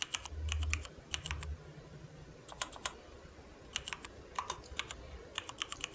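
Typing on a computer keyboard: quick runs of key clicks in short bursts, with brief pauses between them.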